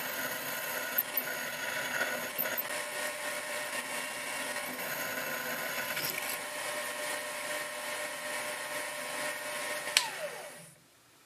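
Small hobby milling spindle running steadily with a 3 mm twist drill cutting holes in a die blank. It is switched off with a click about ten seconds in, and its whine falls away as it spins down.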